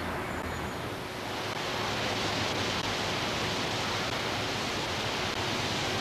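Steady rushing of wind through autumn tree foliage, swelling about a second in.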